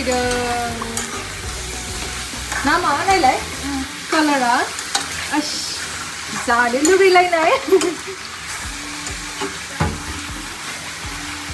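A wooden spatula stirs and scrapes through a simmering onla, a thick rice-paste curry, in a wok, over steady bubbling. A few short wavering, pitched, voice-like sounds come through on top, loudest about seven seconds in, and there is a single click near the end.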